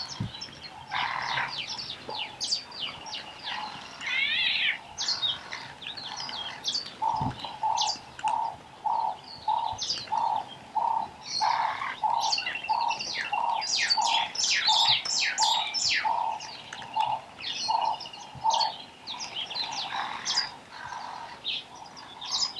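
Meyer's parrots calling at a waterhole: many short, shrill screeches and chirps, rapid and overlapping. From about a third of the way in, a steady series of lower hoots, about two a second, runs beneath them for over ten seconds.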